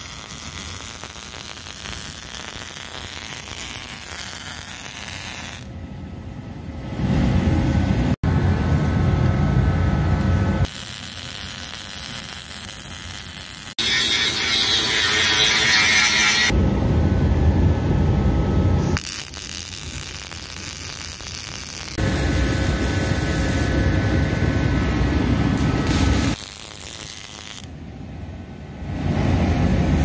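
Short cut-together stretches of MIG welding crackling on steel plate and an angle grinder grinding the welds, switching abruptly every few seconds.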